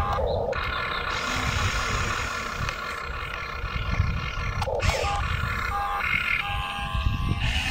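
Radio-controlled excavator's electric motors whining steadily as the boom swings and lifts, with a low rumble underneath; the whine breaks off briefly about five seconds in.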